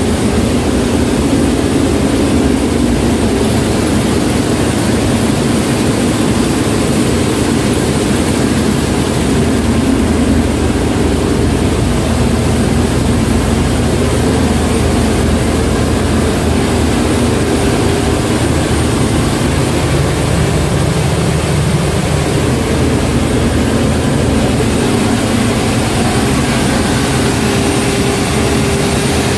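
Marine diesel engines running steadily in an engine room: a loud, continuous machinery drone with a steady low hum, shifting slightly in tone about two-thirds of the way through.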